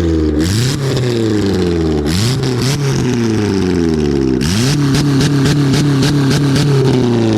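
Saturn car's engine revved with a loud "custom" exhaust that "screams race car". It is blipped three times, about half a second, two seconds and four and a half seconds in, each time sinking back slowly. After the last blip it is held at a steady higher speed.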